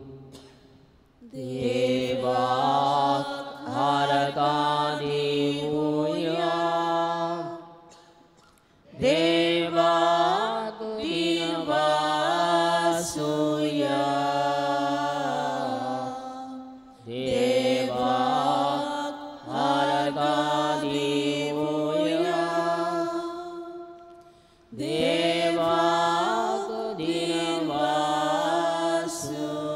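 Devotional hymn chanted in four long sung phrases with short breaths between them, over steady low held notes.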